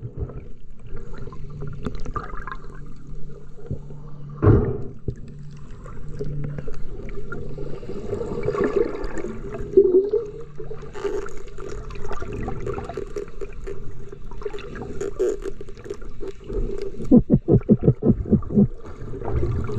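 Muffled underwater sound heard through a submerged camera: gurgling water movement over a low steady hum, with a sharp thump about four seconds in and a quick run of knocks near the end.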